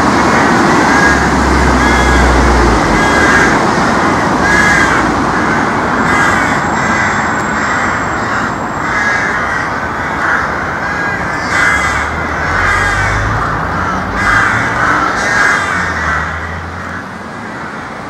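Several crows cawing over and over, calls overlapping, in the breeding season. A steady low rumble of traffic runs underneath.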